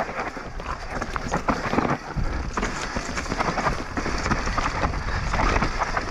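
Mountain bike descending a rough dirt trail: tyres rolling and crunching over stones and roots, with the bike rattling in a dense stream of quick knocks and clicks over a low rumble.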